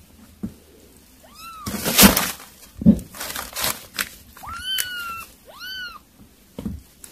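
Young kittens mewing: about three short, high meows that rise and fall, one a little over a second in and two close together near the end. Between them come bursts of rustling and scuffling, the loudest about two seconds in.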